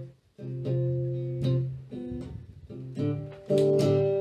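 Archtop guitar playing a blues fill of plucked single notes and chords, with a brief break just after the start and a louder ringing chord about three and a half seconds in.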